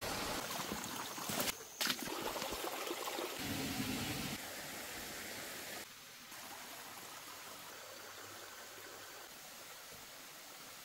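Forest stream trickling and babbling, with several abrupt changes in the sound in the first few seconds; about six seconds in it drops to a quieter, steady background hush.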